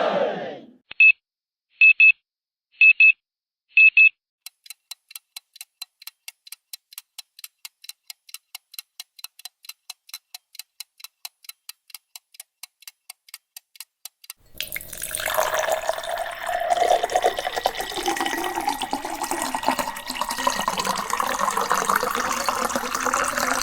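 A run of sound effects: four short, high electronic beeps about a second apart, then rapid even ticking at about five a second for some ten seconds, then running water like a tap pouring, which starts suddenly about fourteen seconds in.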